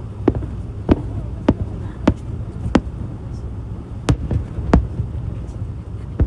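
Fireworks shells bursting in a rapid barrage: about eight sharp bangs, most roughly half a second apart with a short pause midway, over a steady low rumble.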